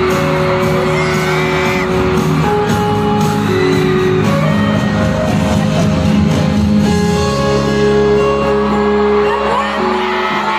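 A K-pop boy group performing live in an arena: singing over band or backing music, with fans whooping and screaming.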